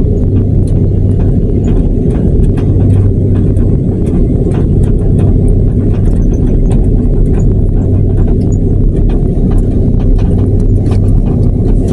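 Cabin noise of a Garuda Indonesia airliner rolling on the ground: the engines' steady low hum and rumble, with many irregular clicks and knocks from the wheels and cabin fittings as it rolls over the pavement.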